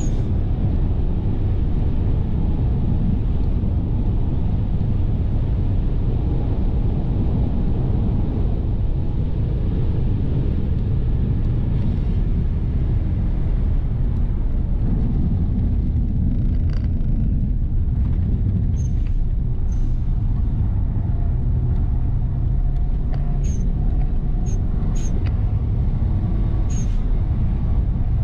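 Interior noise of a 2005 Subaru Legacy 2.0 turbo AWD at track speed: its turbocharged flat-four engine running along with a heavy, steady rumble of wind and tyres on the road. A few brief high chirps come through in the second half.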